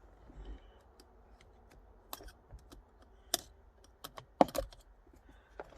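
Scattered light clicks and taps of hand work on a car steering wheel's airbag and its small Torx screws, with a few sharper knocks a little past four seconds in.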